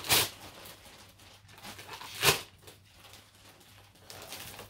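Gift wrapping paper being torn off a present by hand: two loud rips about two seconds apart, with softer paper rustling between.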